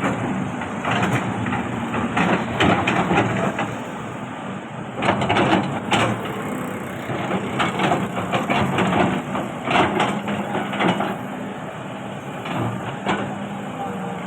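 Excavator with its diesel engine running steadily while the bucket scrapes and crunches through soil and stones. The crackling comes in irregular spells of rapid clicks, loudest a few seconds apart, over the engine's steady hum.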